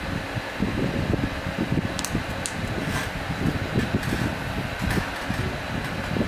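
Steady electric-fan noise with air buffeting the microphone, plus a few faint clicks about two to three seconds in as the cap and its plastic snapback strap are handled.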